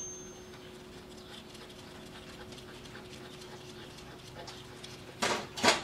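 A dog gives two short barks, about half a second apart, near the end; before that there is only a faint steady hum.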